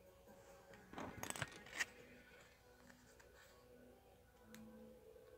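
Mostly quiet, with a short run of faint clicks and rustles about a second in and one small tick later: small plastic toy parts and sticker backing being handled.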